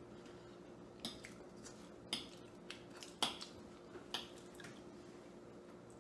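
Metal forks clinking and scraping against ceramic dinner plates of pasta: about six short, sharp taps spread over a few seconds, over a faint steady hum.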